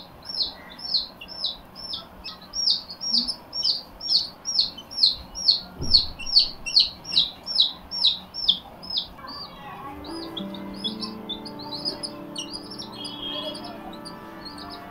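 Baby chicken chick peeping over and over: short, high, falling peeps at about three a second. From about ten seconds in, background music comes in under fainter peeps.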